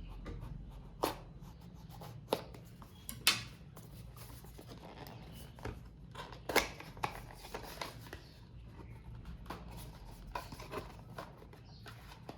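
Seal on a cardboard phone box being broken and the box opened and unpacked: rustling of paper and packaging with a few sharp clicks and snaps, the loudest about a second in and again after about six seconds.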